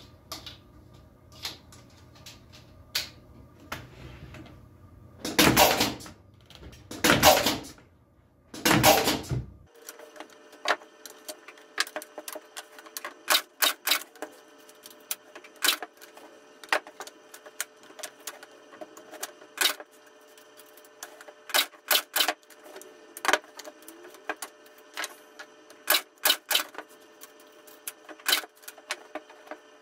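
Picture-framing underpinner driving V-nails into the corners of a glued wooden frame. Three loud bursts about a second and a half apart are followed by many sharp, irregular clicks.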